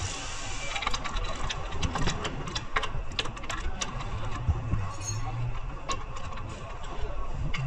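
Irregular sharp clicks and taps of hand tools working on metal, over a low steady hum that swells for a moment past the middle.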